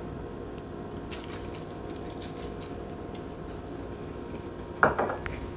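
Salt and pepper sprinkled by hand onto diced turnip and Brussels sprouts in a steel mixing bowl: a faint light pattering of grains over a low steady room hum. A brief louder sound comes near the end.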